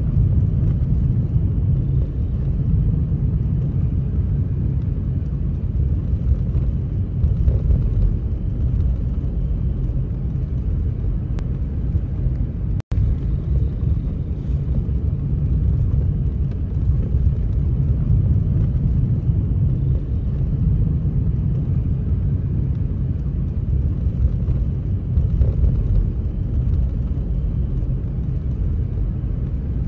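Steady low rumble of a moving vehicle, even and without a clear engine note, breaking off for an instant about thirteen seconds in.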